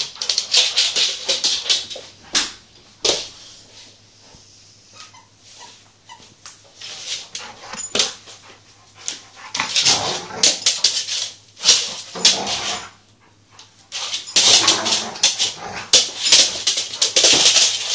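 A puppy barking and whining, mixed with repeated sharp clicks and scuffles, with a quieter stretch partway through.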